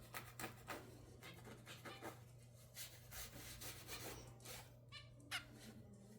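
Young zebra finches: faint scratching and rustling with small clicks, then a few soft, short chirps in the last two seconds, one slightly louder.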